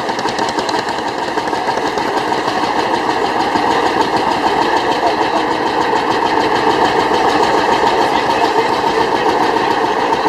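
A vintage engine running steadily with a fast, even beat, slowly getting louder.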